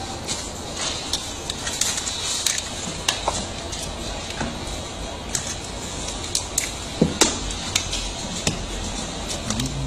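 Hard plastic parts of a kids' ride-on truck knocking and clicking as a plastic exhaust-pipe trim piece is handled and fitted against the body, with two sharp knocks about seven seconds in, over a steady hiss.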